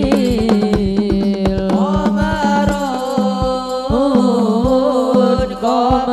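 A song played back through a mixing console, recorded straight from the mixer with its effects and no editing: a wavering lead melody over a steady low drone and a regular beat of hand-drum strokes.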